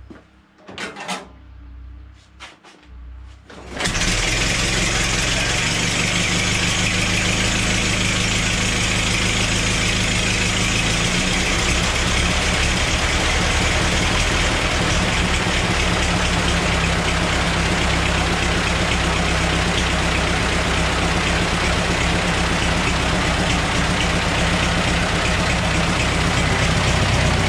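Ford Model T four-cylinder engine, hand-cranked on its magneto ignition with no battery, catches about four seconds in and then runs steadily.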